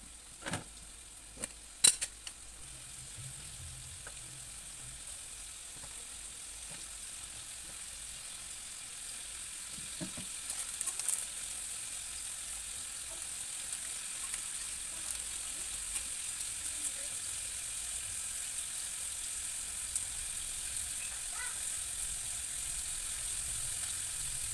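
Meat pieces frying in a small pan over a gas flame: a steady sizzle that grows slowly louder. A couple of sharp clinks about two seconds in.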